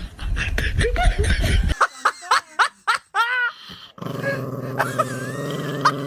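A dog giving several short yelping calls that rise and fall, in quick succession, after a low rumble with knocks. About four seconds in, a long, low, steady sound follows.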